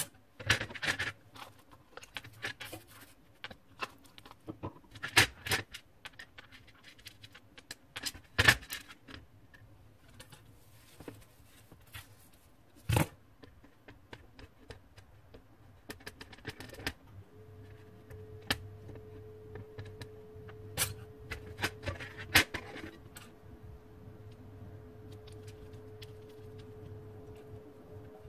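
Irregular clicks and taps of metal on metal as a soldering iron and a solder-coated bangle are handled and knocked against a metal tray, a few of them sharp and loud. A faint steady hum comes in a little over halfway through.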